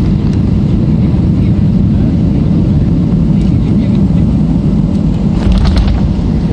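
Jet airliner cabin noise at a window seat: a loud, steady low rumble of engines and airflow, with a brief cluster of clicks or rattles about five and a half seconds in.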